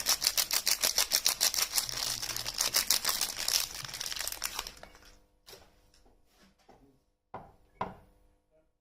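Soap wrapper crinkling and tearing with rapid crackles for about the first five seconds, then a few light taps, with two louder ones near the end.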